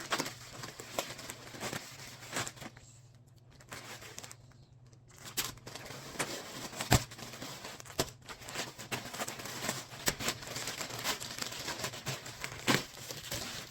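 Plastic package being torn open and crinkled by hand: irregular crackling and tearing with sharp clicks, easing off for about two seconds a few seconds in.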